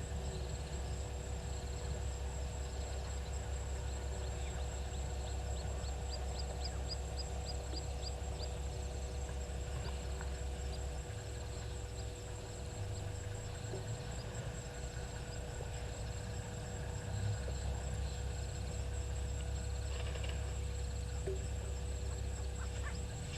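Bush ambience at a waterhole: a steady low rumble with faint high calls repeating throughout, and a quick run of about ten short high chirps around six to eight seconds in.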